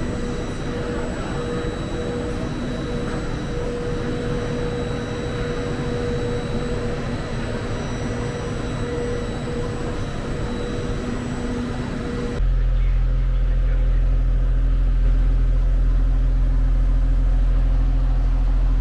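Railway platform ambience: a steady hum and whine from trains standing at the platform, with a noisy wash of station sound. About twelve seconds in it changes abruptly to a louder, deeper steady hum from a regional train running at idle right beside the platform.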